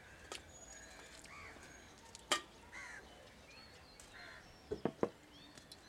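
Stainless steel plates and bowls clinking as food is eaten by hand: one sharp clink about two seconds in and a quick pair near the end. Birds chirp in the background.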